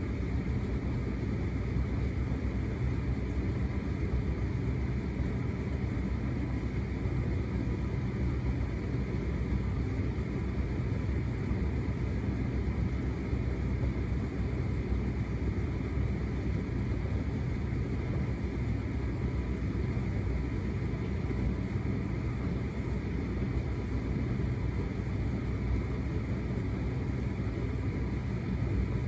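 Hotpoint SUTCD97B6PM condenser tumble dryer running on a shirts cycle: a steady low rumble from the motor and the turning drum as it tumbles a load of clothes.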